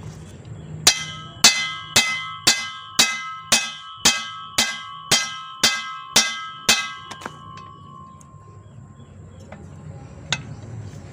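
Hammer striking the steel yoke of a Toyota Kijang propeller shaft to drive out the universal joint (cross joint): about a dozen ringing metallic blows, two a second, then one more blow near the end.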